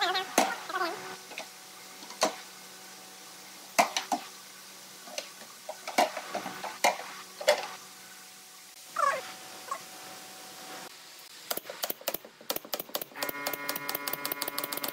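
Pine boards knocked together and set down on a wooden cabinet top, with a few short squeaks. Near the end comes a fast run of sharp clicks as a pneumatic brad nailer is fired along the edge.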